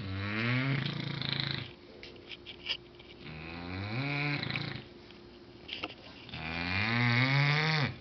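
English bulldog snoring loudly in deep sleep: three long snores about three seconds apart, each rising in pitch as it goes.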